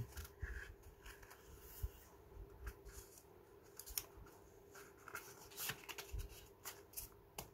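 Faint, scattered clicks and rustles of a deck of playing cards being slid into its cardboard box and handled.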